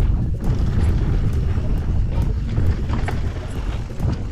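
Wind buffeting the microphone of an electric mountain bike riding fast down a dirt trail, a steady deep rumble. Short clicks and rattles from the bike and tyres on the dirt run through it.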